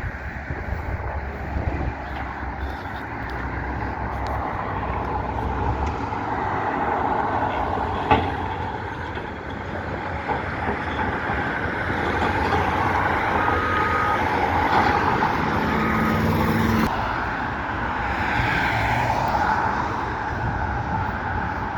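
Heavy demolition machinery running steadily, with a single sharp bang about eight seconds in and a low drone that cuts off suddenly near the end.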